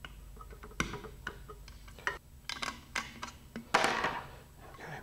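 Hobby-knife blade scraping excess resin off the seams of a fiberglass nose cone: a string of short scrapes and clicks, with a louder, longer rasp about four seconds in.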